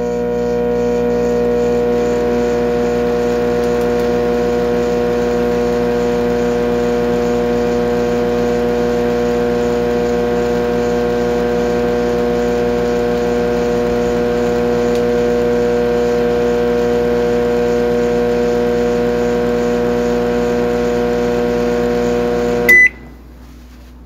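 Opened Philco microwave oven running with a steady hum, then a short beep about 23 seconds in as it stops, after which the hum cuts off. It runs without heating: no high voltage reaches the tube, a fault the repairer later traces to the magnetron.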